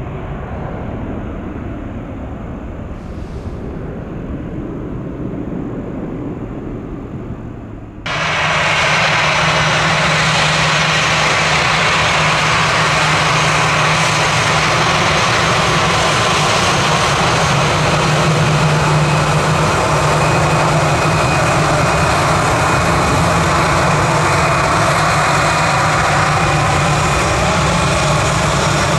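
Jet airliner engines heard from the ground: a quieter, duller engine rumble gives way suddenly, about eight seconds in, to a loud steady jet roar with a low hum underneath.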